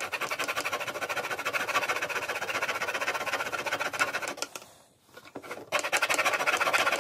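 Fine-toothed hobby razor saw rasping through the centre section of an RC plane elevator in quick back-and-forth strokes, with a short pause about five seconds in.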